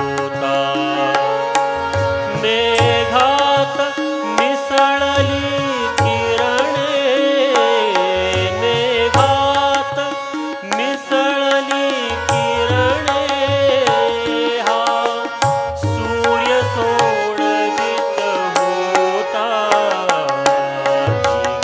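A man singing a Marathi song live into a microphone, his voice gliding and ornamenting, with a tabla keeping a steady beat and a held drone note underneath.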